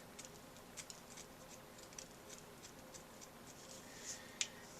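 A round wooden toothpick being sharpened by hand: faint, quick scraping strokes a few times a second, with one sharper scrape near the end.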